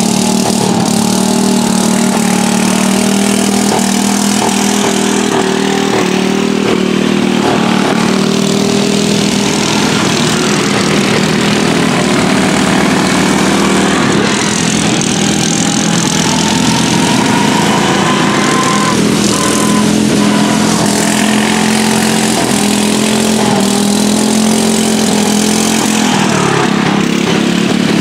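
A pack of modified racing riding lawn mowers' small engines running together in a steady drone, with one engine's pitch climbing and falling back near the middle as it revs.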